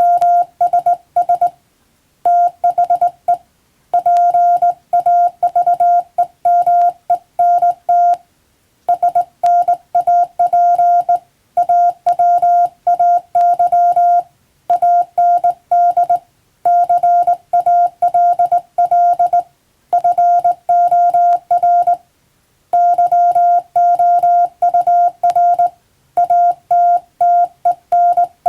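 Morse code (CW) sent as a single steady tone keyed on and off in dots and dashes, in runs of characters broken by short pauses every few seconds.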